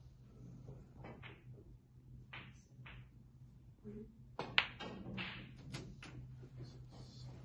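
Snooker shot: a sharp, loud click of the cue ball striking the object ball about four and a half seconds in, followed by a few softer knocks of the balls on the table. There are a few fainter knocks before the shot.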